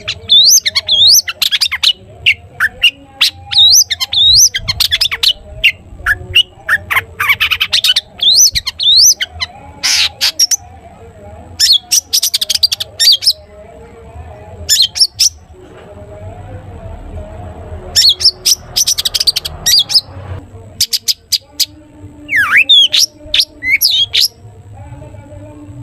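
Long-tailed shrike (cendet) singing its chattering 'toet toet' song: fast runs of harsh chirps and squawks mixed with short up-and-down whistles, broken by a few brief pauses.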